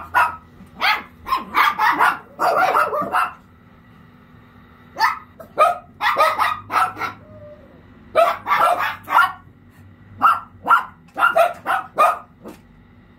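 Several small long-haired dogs barking and yapping in quick excited volleys, with a short lull about a third of the way in. The barking is the dogs' excited welcome of their owner.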